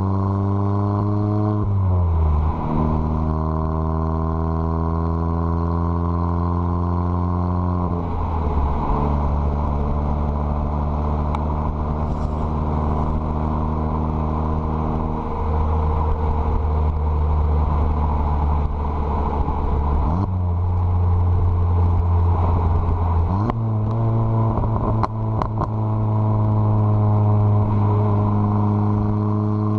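Stage 2 tuned Volkswagen Mk7 GTI's turbocharged four-cylinder running through a catless downpipe on the move. Engine pitch holds or climbs slowly, then jumps to a new pitch at each of several gear changes, with a few sharp exhaust cracks late on from the pops-and-crackles tune.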